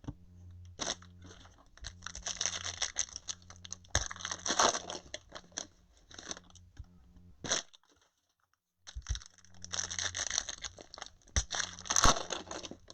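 Trading-card packs and wrappers being handled and torn open: irregular bursts of crinkling and tearing, over a steady low electrical hum. The sound cuts out completely for about a second past the middle.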